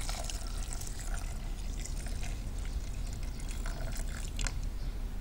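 Water poured from a small jug into a saucepan of rice and chopped tomatoes: a steady trickling splash that stops about four and a half seconds in.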